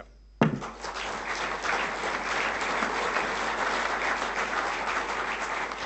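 Seated dinner guests applauding, a dense clapping that starts about half a second in and keeps on steadily.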